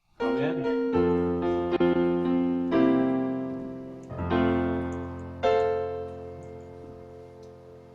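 Piano playing a short passage of sustained chords, about five chords struck and left to ring and fade, the last dying away at the end.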